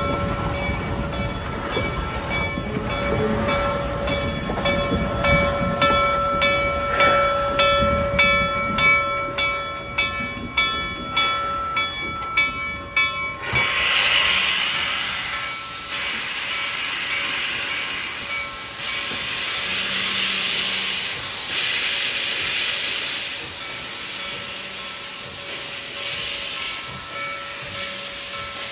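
Reading 2102, a 4-8-4 steam locomotive, rolls slowly past up close, its wheels squealing with a steady ringing tone over a regular clank about twice a second. About halfway through this gives way to a loud, even hiss of steam blowing from the locomotive's open cylinder cocks.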